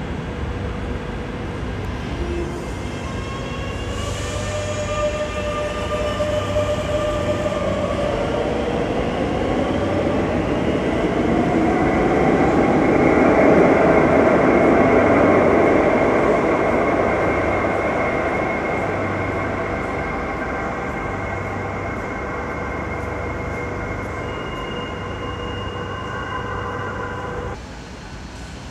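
Madrid Metro electric trains in an underground station: a train pulls out with a rising electric traction-motor whine, its rumble swelling as it runs off, then another train rolls in along the platform with a steady whine and comes to a stop. The sound drops abruptly near the end.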